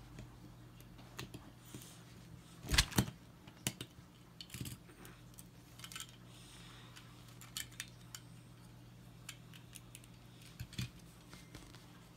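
Plastic LEGO bricks clicking and clacking as they are handled and pressed together, in scattered single clicks with a louder pair of clacks about three seconds in.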